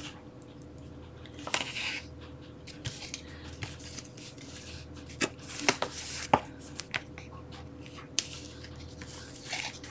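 Scattered light clicks and short rustles of paper and adhesive tape being handled on a craft desk, a few seconds apart.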